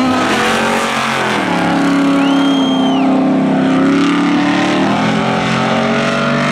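Two race cars' engines running hard side by side. Their pitch climbs about a second in and then holds steady, with a short high squeal about two seconds in.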